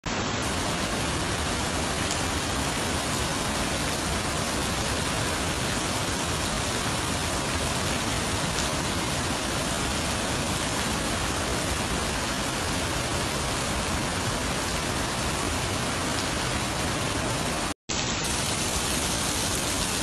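Heavy rain pouring, a steady dense hiss that cuts out for an instant near the end and then carries on.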